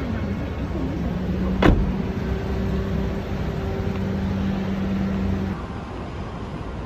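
Steady low rumble of a vehicle running, with a steady hum and one sharp click about one and a half seconds in; the rumble drops a little near the end.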